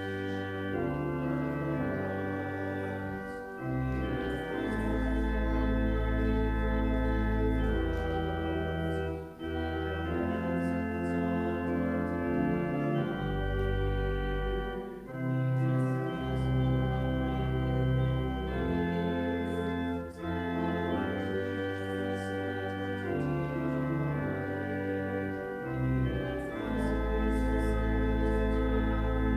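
Organ playing a slow instrumental piece in held chords over a deep pedal bass, with short breaks between phrases.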